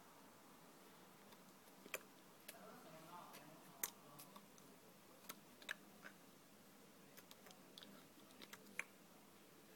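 Near silence broken by a few faint, sharp clicks scattered irregularly through it.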